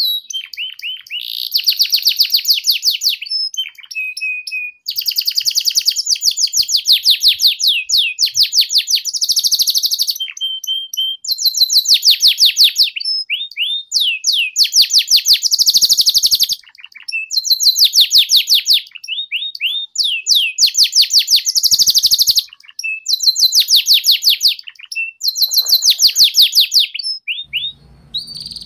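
Domestic canary singing in the fast rolling 'ngeriwik' trill: about nine bursts of rapidly repeated high notes, each one to three seconds long, linked by short slurred chirps.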